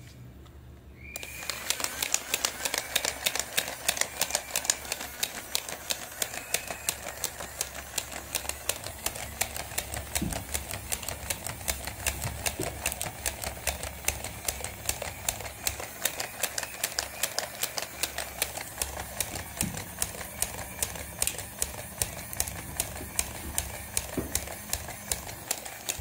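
Small electric toy mechanism running: its motor and gears give a steady rapid clicking, several clicks a second, that starts about a second in.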